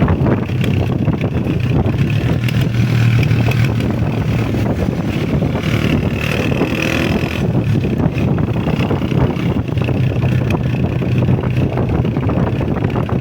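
Honda CG125 motorcycle's single-cylinder four-stroke engine running steadily while riding, with wind buffeting the microphone.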